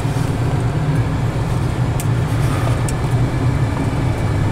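Steady in-cabin drone of a 1976 Cadillac Seville driving at road speed: its 350 V8 and tyre and road noise blend into an even low hum.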